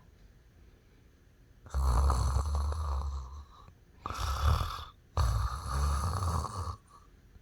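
A person snoring loudly: three long, rasping snores with a deep rumble, following one another after a short quiet start.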